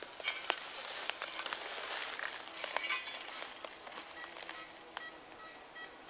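Dense crackling and rustling of dry forest litter and twigs, a run of small snaps and clicks that thins out in the second half. Faint steady tones join about two-thirds of the way through.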